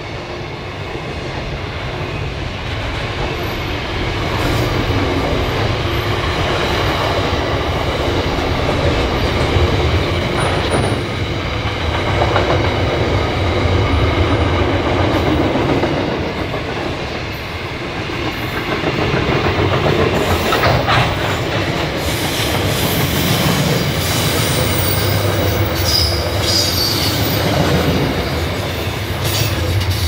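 Container wagons of a long freight train rolling past: steady rumble and clatter of wheels over the rails, with a few brief high-pitched wheel squeals. The noise starts to drop away at the very end as the last wagon passes.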